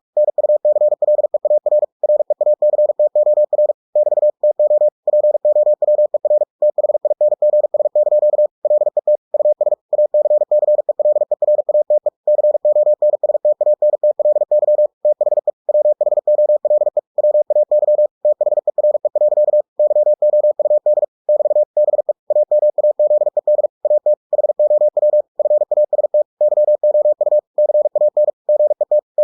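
Computer-generated Morse code (CW) sent at 45 words per minute: a single steady, mid-pitched tone keyed on and off in very fast dots and dashes, with short pauses between words.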